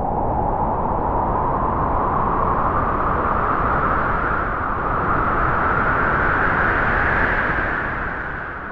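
Wind blowing in one long gust, a steady rushing noise that slowly rises in pitch and eases off near the end.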